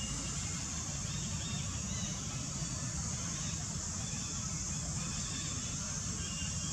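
Steady outdoor ambience: a constant high insect drone over a low rumble, with a few faint bird chirps.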